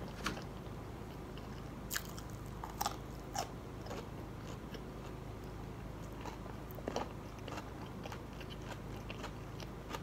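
A person eating fried food close to the microphone: biting and chewing, with a few sharp crunches scattered through, over a low steady hum.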